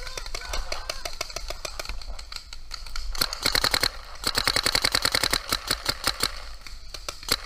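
Proto Rail paintball marker firing: from about three seconds in, two rapid strings of shots, then slower, spaced single shots. Other paintball markers pop faintly across the field throughout.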